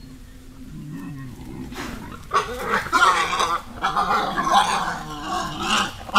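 Wild boars grunting low, then from about two seconds in, loud high-pitched squealing with growls that keeps on until the end.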